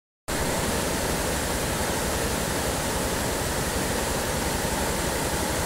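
Mountain river rushing over boulders in white-water rapids: a steady, even rush of water that starts abruptly just after the opening.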